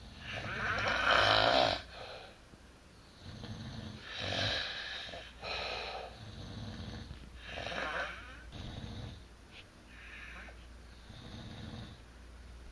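Two people snoring in their sleep: a series of irregular snores, some overlapping, the loudest about a second in.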